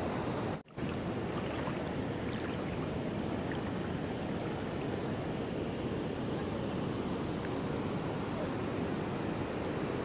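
Steady rush of river water pouring over a rocky cascade, an even hiss. It is broken by a split-second gap of silence just under a second in.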